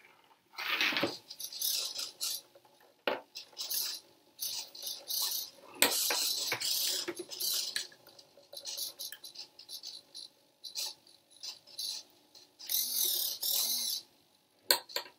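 Hands handling small objects: intermittent scratchy rustling in short irregular bursts, with a few light clicks.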